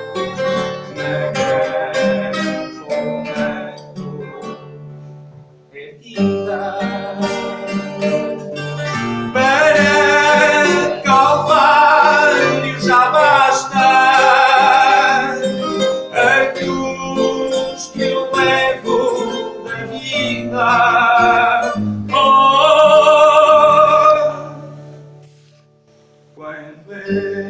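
Coimbra fado ballad played live on a Portuguese guitar and a classical guitar, with a man singing long, drawn-out phrases over the plucked accompaniment from about a third of the way in. Near the end the voice ends on a long held note and the music falls away briefly.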